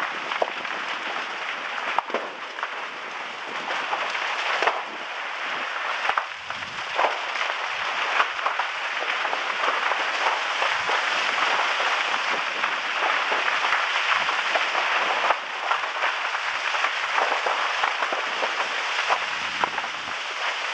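Lava lake surface bubbling and spattering: a dense, steady hiss full of sharp crackles and pops as gas bursts through the molten lava.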